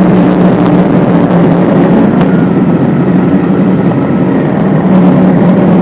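Motorcycle engine running at a steady cruise with a constant low hum, under heavy wind noise from riding.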